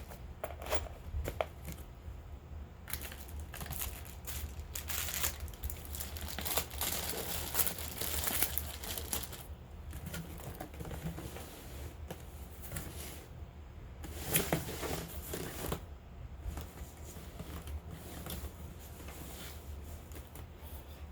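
Packaging crinkling and rustling as items are unwrapped by hand, in irregular bursts with the heaviest stretches in the first half and again past the middle.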